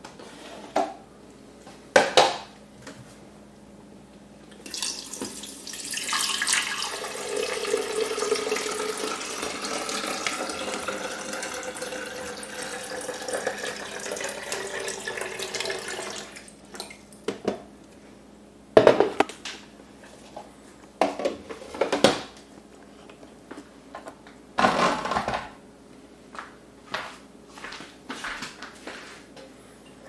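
Water poured from a jug into an espresso machine's water tank, a steady pour of about ten seconds starting some five seconds in. Sharp plastic knocks and clicks before and after it.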